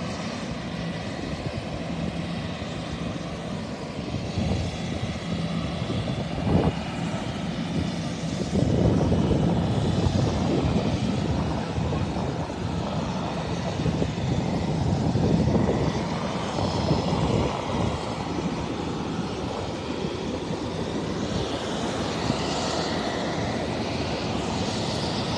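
An Airbus airliner's jet engines rush with a faint high whine as it rolls along the runway after landing. The noise grows louder for several seconds in the middle, then eases.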